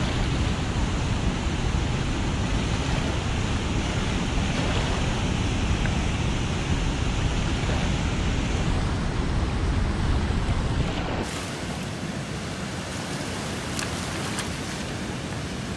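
Wind rumbling on the microphone over river water washing against a rocky riprap bank. About eleven seconds in the sound drops to a quieter, thinner rush with a few light clicks of stones underfoot.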